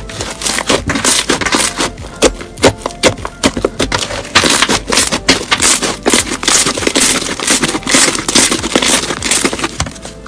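Slime being squeezed and poked by hand, giving a dense run of crackling pops and clicks.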